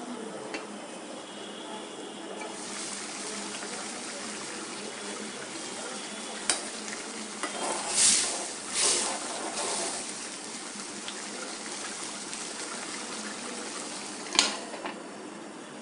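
Curry bubbling and sizzling in an uncovered aluminium pan, louder a few seconds in, with a spoon stirring and scraping through it in the middle. Near the end the aluminium lid goes back on with a sharp metal clank.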